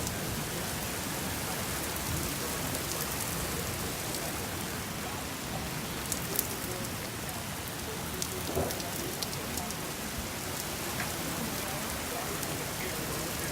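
Steady rain falling, a constant hiss with scattered sharp ticks of individual drops striking a surface.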